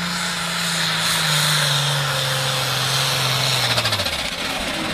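Diesel engine of an International pulling tractor running flat out under load as it drags a weight-transfer sled. Its pitch sags about a second in as the sled bogs it down, then drops away near the end as the throttle comes off at the end of the pull.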